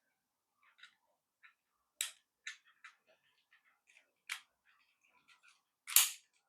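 Small clicks and taps of a plastic battery box and its metal contact tabs being handled and refitted, with a sharper click about two seconds in and the loudest snap near the end.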